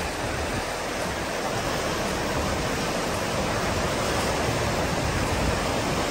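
Rushing river rapids: a steady, loud wash of whitewater over rocks.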